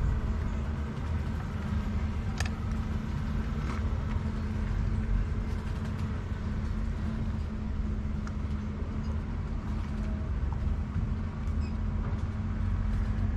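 A steady low mechanical rumble with a faint hum, with a few faint light clicks as a wooden stick picks meat from boiled crab shells.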